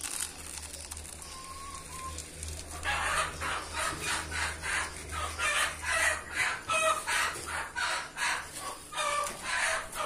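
Chicken cackling: a run of loud, harsh clucks about two a second, starting about three seconds in and going on to the end.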